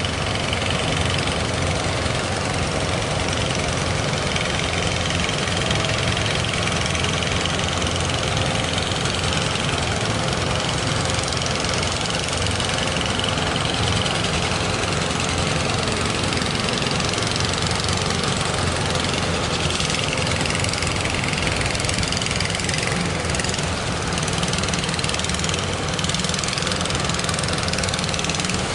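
Boat engines running steadily as fishing boats and speedboats head out to sea.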